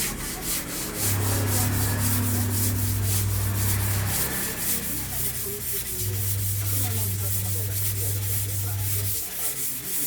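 Rhythmic rubbing strokes, about four a second, like sandpaper on wood. A steady low hum runs from about a second in to about four seconds, and again from about six to nine seconds.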